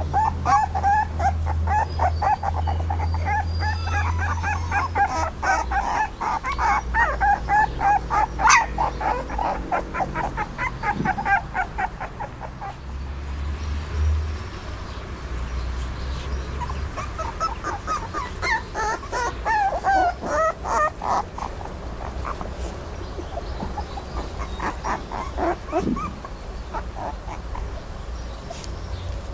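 A litter of three-week-old puppies whining and squeaking, many short high cries overlapping in a busy chorus that thins out about twelve seconds in, picks up again past the middle, then becomes sparser near the end.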